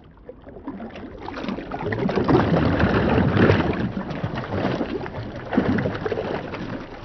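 Sound effect of swirling, splashing water that swells up over the first couple of seconds, surges again about two-thirds of the way through, then fades away.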